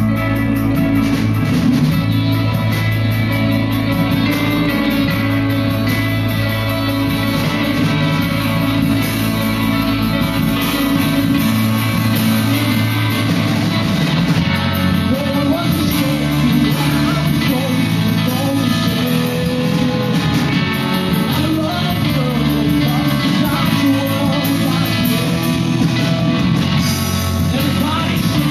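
Live rock band playing: electric guitars, bass and drum kit, with a man singing lead vocals.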